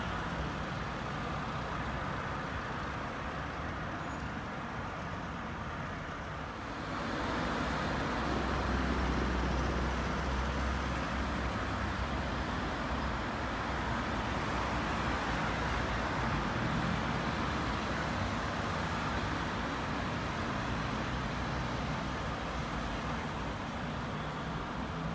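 City street traffic noise: a steady wash of passing cars. About seven seconds in it swells as a vehicle with a low engine rumble passes close.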